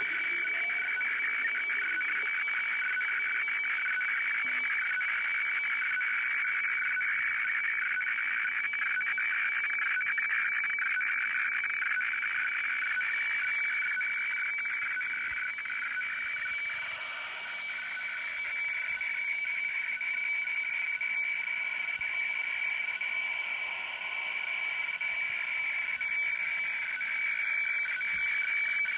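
Shortwave radiofax (WeFax) signal from Kyodo News heard through a Sony CRF-V21 world band receiver's speaker while it prints the page: a steady high whistling tone over a rasping, noisy band of tone, the sound of the fax image coming in. The signal fades a little about halfway through, then comes back.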